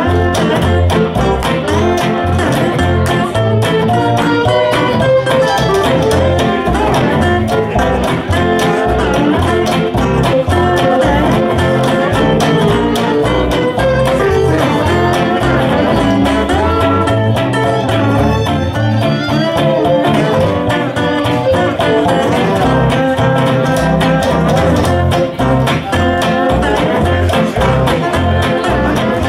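Live swing band playing an instrumental: plucked upright bass and acoustic guitar keep a steady beat under fiddle, lap steel guitar and saxophone.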